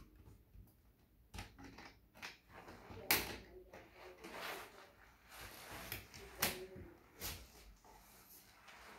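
Light, scattered clicks and knocks of small objects being handled at a child's desk, a few at a time, with faint murmurs of a voice in between.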